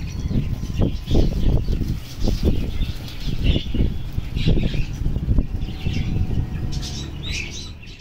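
Small birds chirping in short high calls, in several bursts, over a heavy, uneven low buffeting rumble on the microphone.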